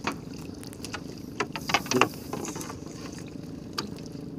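Small boat engine running steadily at idle, with scattered sharp knocks and clicks over it, a cluster of them about two seconds in, as a gill net full of fish is hauled and cleared aboard.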